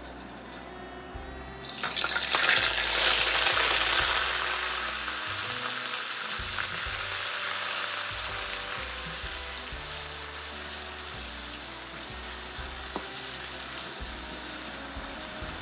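Onion paste dropped into very hot mustard oil in a wok: a sudden loud sizzle bursts out about two seconds in, then slowly settles into a steadier frying sizzle as it is stirred. The oil is too hot, which makes the sizzle this loud.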